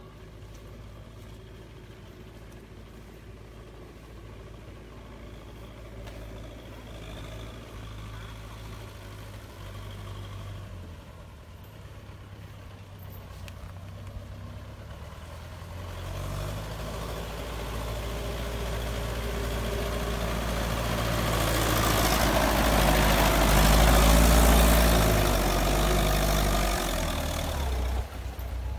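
Diesel farm tractor's engine running as it hauls a load through a muddy field, growing steadily louder as it approaches and passes close by, with a rising rush of noise at its nearest point. The sound drops suddenly near the end.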